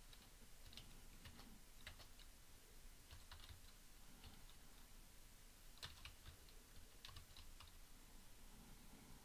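Faint typing on a computer keyboard: short keystroke clicks in a few irregular clusters.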